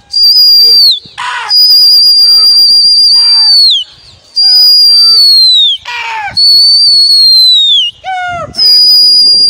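Loud, piercing whistling, a pigeon flier's call to the flock circling overhead. About five long blasts are held at one high pitch, and most drop in pitch as they end. Short falling chirps come between them, near the middle and the end.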